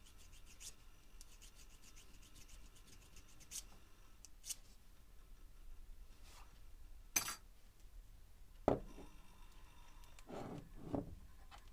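A thin metal blade scraping the case of a canister ignition coil to clean it for good contact, a quick run of fine scratching strokes over the first three or four seconds. After that come a few separate sharp clicks and knocks.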